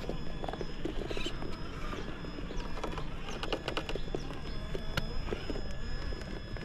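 Traxxas TRX4 RC crawler working its way over rock: irregular clicks, knocks and crunches from its tyres and loose stones, over a steady low rumble.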